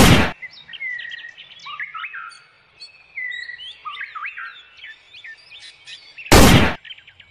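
Small birds chirping and calling again and again. A short, loud rush of noise comes right at the start, and another about six seconds in.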